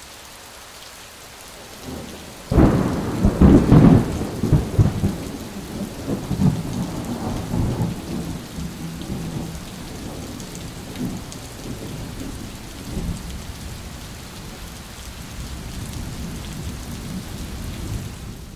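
Thunderstorm: steady rain hiss, then a loud thunderclap about two and a half seconds in that rolls on as a long, uneven rumble until it cuts off abruptly at the end.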